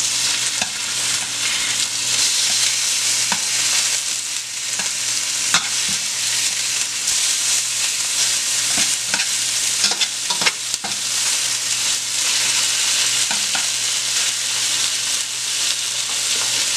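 Ribeye steaks sizzling steadily in oil in a stainless steel pan on high heat. Several sharp clicks of metal tongs against the pan come as the steaks are turned over.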